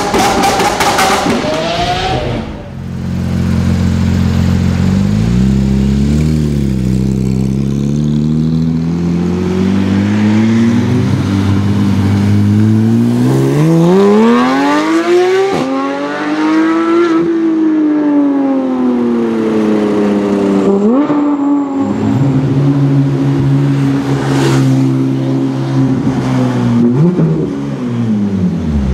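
A short logo sound effect opens. Then a Porsche 991 GT3's flat-six runs through an iPE aftermarket exhaust, steady at low revs before revving up hard about eleven seconds in and easing back down, with further short throttle blips near the end.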